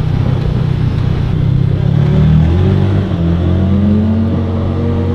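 Side-by-side UTV engine running as it drives along, heard from inside the cab; the engine pitch rises a little about two and a half seconds in, then holds steady.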